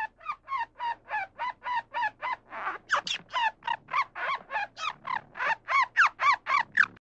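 Squirrel calling: a rapid, steady run of short barking chatter notes, about three to four a second, growing louder in the second half.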